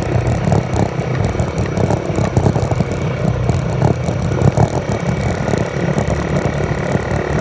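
Engine of a Polaris off-road vehicle running steadily, with irregular knocks and rattles over it.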